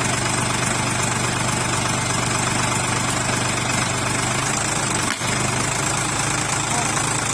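Sonalika 45 HP tractor's diesel engine running steadily at idle, with a brief dip about five seconds in.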